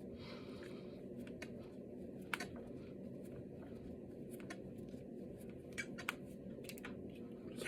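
Finger knuckles cracking: a string of short sharp pops at irregular intervals, the loudest about two and a half seconds in and twice around six seconds in, over a steady low background noise.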